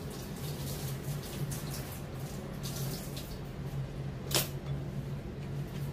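Faint scratchy handling sounds as fish is rubbed with salt by hand in a stainless-steel sink, over a steady low hum, with one sharp click about four seconds in.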